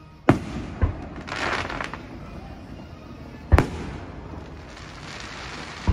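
Aerial firework shells bursting: three sharp booms spread over a few seconds, with another at the very end. A crackling hiss follows the first two booms.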